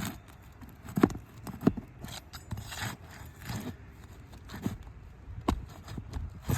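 A metal tool scraping and prying under asphalt roof shingles. Irregular scrapes come with sharp knocks, the loudest about a second in and again a little later.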